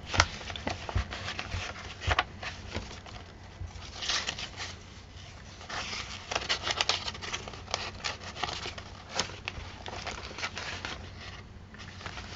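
Paper rustling with scattered light taps and clicks as a handmade journal's pages and tucked paper pieces are handled and turned.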